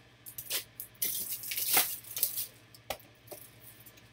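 Crinkly rustling and scraping of trading-card packaging and plastic card holders being handled. It comes as several short rustles, with a dense, louder stretch about a second in.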